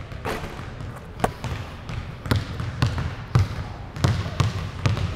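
A basketball bouncing on a hardwood gym floor as it is dribbled, with sharp thuds coming about twice a second later on.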